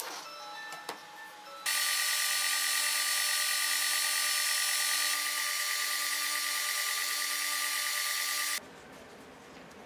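Edge belt sander running steadily while a thin wooden strip is held against its abrasive belt, a steady hum with held tones over a sanding hiss that starts and stops abruptly.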